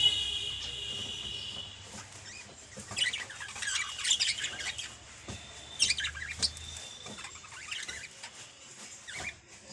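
Small pet parrots chirping and twittering: a held high whistling call in the first two seconds, then bursts of quick high chirps about three seconds in, around six seconds, and again near eight seconds.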